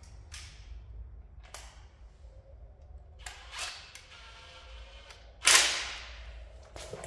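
A cordless power driver run in short bursts on the idler pulley bolt of the engine's accessory belt drive. The loudest is a sharp burst about five and a half seconds in that trails off over half a second, with clicks and knocks of the tool being handled around it.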